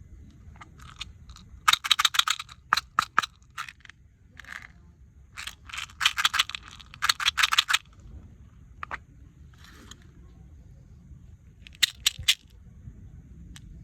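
Small hard objects being handled: quick runs of sharp clicks and rattles in three bursts, the loudest in the first half.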